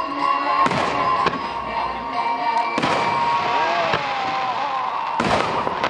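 Festival fireworks going off, with several sharp bangs about one to two seconds apart, the strongest about three seconds in and near the end, over music playing through loudspeakers.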